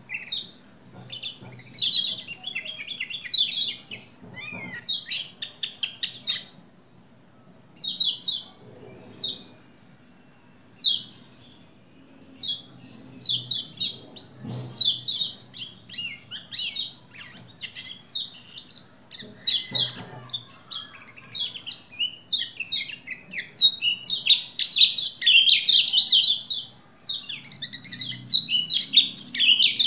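Caged Lombok white-eye (pleci) singing in full voice: fast runs of high chirps and trills broken by short pauses, busiest and loudest near the end.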